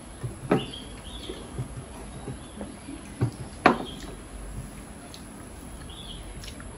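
Eating by hand at a table: several sharp clicks of plates and glass bowls, the loudest about three and a half seconds in, over quieter handling noise. Several short, high chirps come and go.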